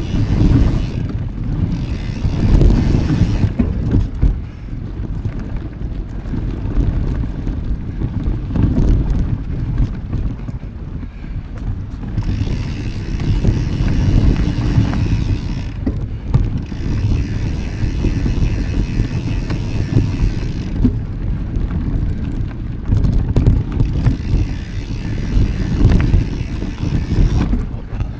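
Wind buffeting the microphone of a camera riding along on a mountain bike, a loud low rumble that swells and eases, with light knocks and rattles from the bike underneath.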